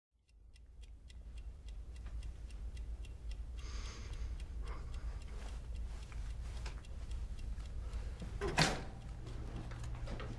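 A clock ticking steadily over a low, constant rumble. A brief rustle comes about four seconds in, and a louder thump a little past eight seconds.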